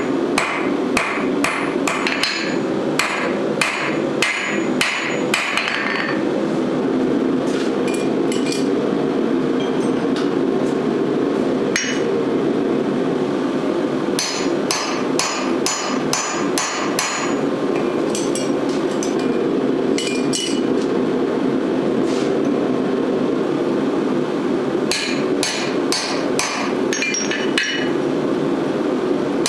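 Blacksmith's hammer striking red-hot steel on an anvil, about two ringing blows a second for the first six seconds. It then comes in short runs of blows with pauses, driving a punch through the hot bar, over a steady low rumble.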